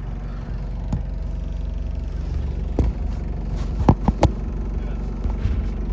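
Several sharp knocks and clunks, with three close together a little past the middle, as camper-van interior fittings are handled, over a steady low hum.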